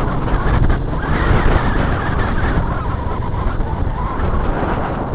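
Steady wind rush and road noise while riding a Honda Astrea Star motorcycle, with the low rumble of its small four-stroke single-cylinder engine running underneath.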